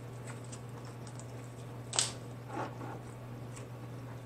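Cooked Dungeness crab being pulled apart by hand: one sharp crack of shell about two seconds in, then a softer tearing sound, with a few faint clicks around it. A steady low hum runs underneath.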